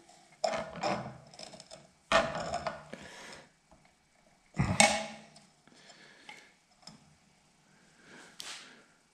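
Metal parts and tools being handled and set down on a hard surface: three clanks, about half a second, two seconds and nearly five seconds in, the last the loudest, then quieter handling noises and a soft scrape near the end.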